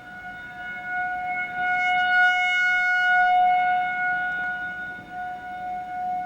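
Electromechanical civil defense siren sounding a steady alert tone: one unchanging pitch that swells louder around the middle and then fades back.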